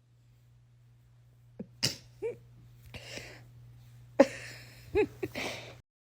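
A pet sneezing several times in a row: short, sharp sneezes starting about a second and a half in, over a low steady hum.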